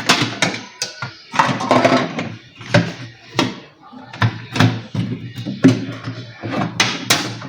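Quick series of knocks and clatter from objects being handled and set down, with talk in the background.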